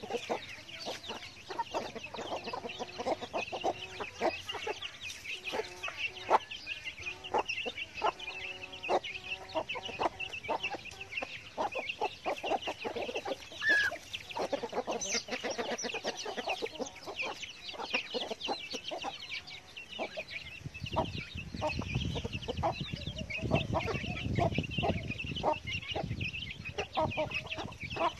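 Domestic hens clucking in short repeated calls while chicks peep continuously in a high thin chorus as they forage together. A low rumble rises underneath for a few seconds in the last third.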